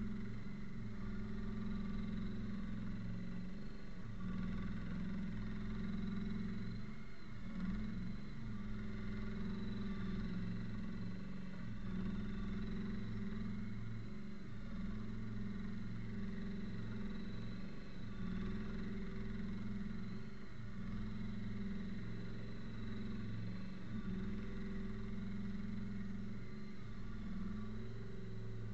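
Engine of an Avant 218 compact articulated loader running at a steady, constant speed while the loader grades soil.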